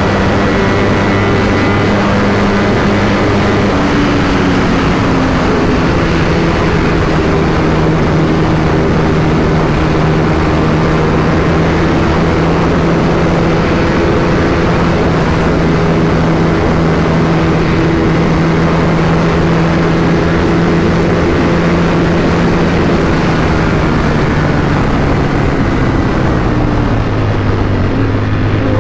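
Ducati motorcycle engine accelerating over the first few seconds, then holding a steady cruising note under heavy wind noise on the rider's microphone. The engine note falls near the end as the bike slows.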